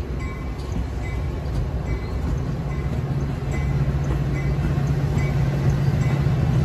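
Metra bilevel commuter coaches passing close by, a steady rumble of steel wheels on the rails. A low steady hum grows louder from about halfway through.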